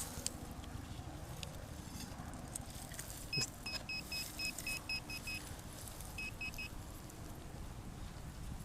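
A metal detector beeping in short, even electronic tones over a target: a quick run of about nine beeps a few seconds in, then three more. A single knock comes just before the first beeps.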